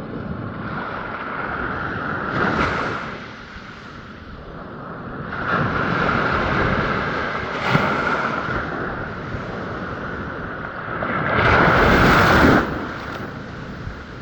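Ocean waves breaking and washing up a sandy beach, the surf noise swelling and easing several times, with the biggest surge shortly before the end.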